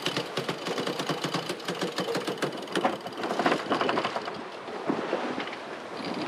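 Katadyn PowerSurvivor 80E 12-volt watermaker pump running, a rapid, steady mechanical clatter as it makes fresh water from seawater.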